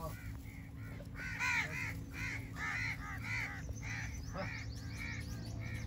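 Crows cawing over and over in short calls, several a second, some overlapping, loudest around the middle. A steady low hum runs underneath.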